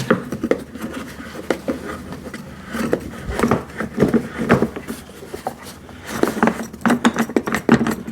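Hard plastic knocks, clicks and scrapes from an electric wood chipper's housing as its knob is undone and the top section is tilted forward to open it. The knocks come in clusters, heaviest a few seconds in and again near the end.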